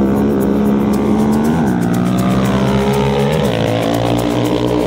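Quad and dirt bike engines at full throttle on a drag-race launch, the pitch stepping and falling as they pull away down the track.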